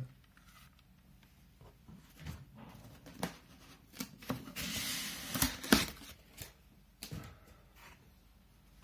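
Packaging handled while unboxing a camera: scattered light clicks and knocks, with a short burst of rustling about five seconds in capped by two sharp clicks, the loudest sounds.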